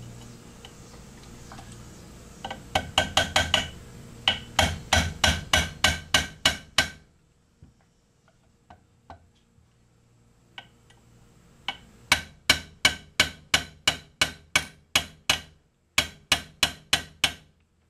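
Ball-peen hammer tapping a roll pin into a low-profile gas block pinned to an AR-15 barrel: quick, sharp taps about four a second, in two runs with a pause of several seconds between them. The pin is stubborn to drive home.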